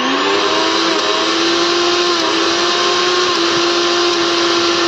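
Mixer grinder's universal motor running unloaded at full speed: a loud, steady whine that settles just after spin-up. The high speed follows replacement of its worn carbon brushes.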